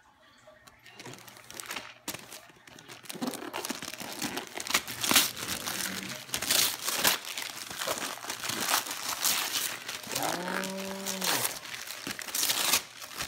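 Gift-wrapping paper being torn and crumpled in a run of irregular crinkles and rips. About ten seconds in, a person gives a short, hummed voice sound that rises and falls.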